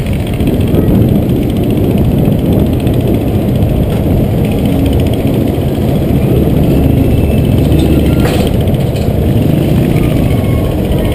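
Motorbike engines running at low speed in a packed queue, a loud steady low rumble. There is one short sharp click about eight seconds in.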